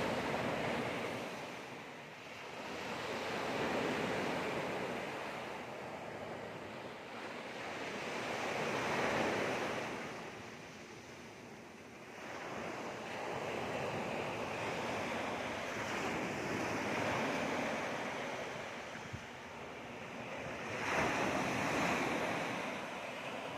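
Sea waves breaking and washing up the shore, the surf swelling and fading every four or five seconds, with some wind.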